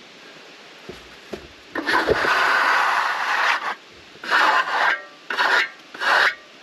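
Rough-sawn oak boards being handled: a couple of light wooden knocks, then one long scrape of wood dragged over wood and three shorter scrapes.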